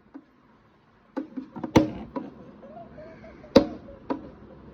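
Pet rabbit scuffling and lunging: an irregular series of sharp knocks and thumps, starting about a second in, with two much louder strikes.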